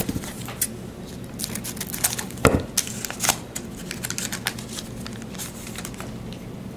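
Trading-card pack wrapper being crinkled and torn open in a run of irregular sharp crackles, the loudest about two and a half seconds in.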